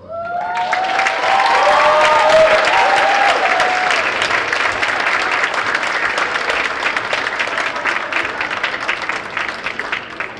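Audience of students and families applauding at the end of a performance, with several high whoops and cheers over the clapping in the first few seconds. The applause starts suddenly and dies away at the very end.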